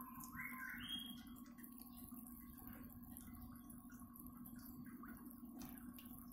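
Near silence: a faint steady hum, with a few short chirp-like tones in the first second.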